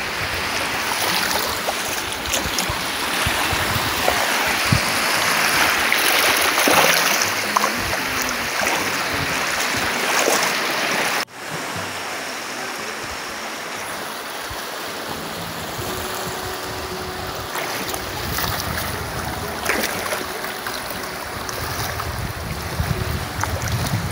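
Shallow sea surf washing steadily, with water sloshing and splashing around the legs of people wading. About eleven seconds in, the sound drops out for an instant.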